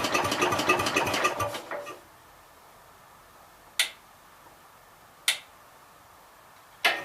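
1966 Gravely C10 tractor's engine running with an even firing beat, then dying out about two seconds in. Two sharp clicks follow in the quiet, and the engine is running again just before the end. The cutting out fits an ignition fault that the owner puts down to a failing coil eating the points.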